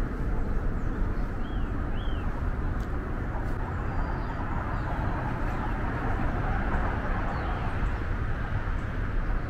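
Steady rush of distant road traffic, with a few short high bird chirps over it.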